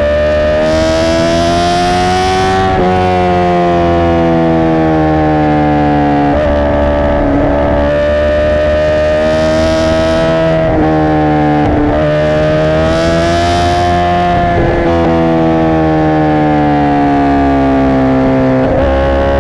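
2017 Honda CBR1000RR Fireblade's inline-four engine through a Racefit exhaust, held at high revs. The pitch creeps slowly upward and dips back every few seconds.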